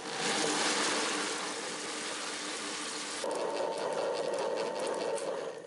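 Table-top wet grinder running, its stone rollers churning soaked rice and cooked rice into batter with a steady, even sound. About three seconds in the sound changes and a faint steady hum comes in, as the batter has turned smooth.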